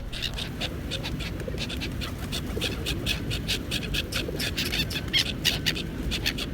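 A flock of pigeons and seagulls fluttering about, with many quick, irregular flaps of wings over a steady low rumble.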